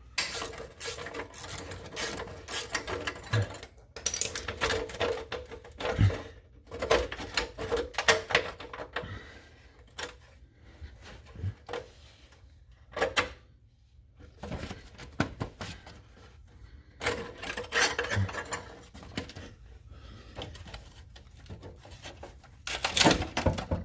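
Hand tools working on metal hardware under a car: irregular clicks, clinks and knocks, some in quick runs, a few much louder than the rest, with a faint steady hum underneath.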